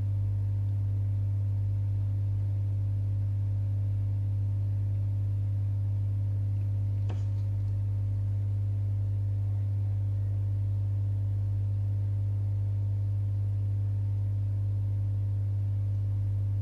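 Hot air rework station blowing on a motherboard chip at very low airflow, giving a steady low electrical hum. A faint single click about seven seconds in.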